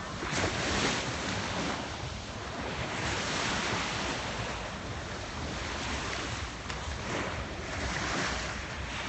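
Small sea waves washing onto the beach in a steady rush, with wind blowing across the microphone.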